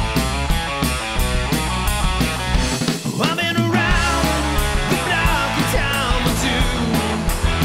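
Rock music with a steady drum beat, dense with guitar. The bass and drums drop out for a moment about three seconds in.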